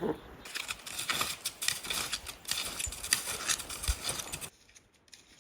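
Snowshoe footsteps crunching in snow, a quick run of steps that stops suddenly near the end.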